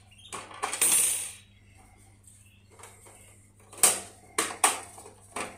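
Hard plastic hamster carrier being handled while its lid is pushed shut: a rustle about a second in, then a few sharp plastic clicks and clatters near the end.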